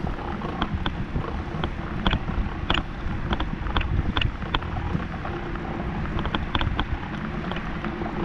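Bicycle rolling over cobblestone paving: a steady low rumble from the tyres on the stones, broken by frequent sharp rattles and clicks as the bike jolts over the setts, with wind on the microphone.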